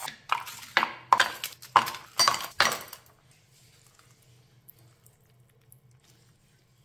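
Hard household items knocking and clinking together, about six clatters in quick succession over the first three seconds, then only a few faint ticks.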